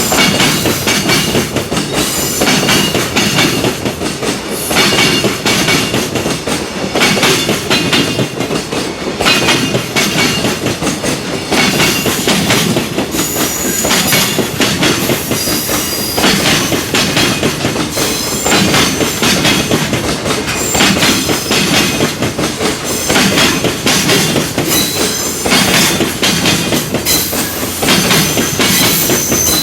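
A long freight train passing close by, its wagon wheels clattering over rail joints again and again, with a high wheel squeal that comes and goes.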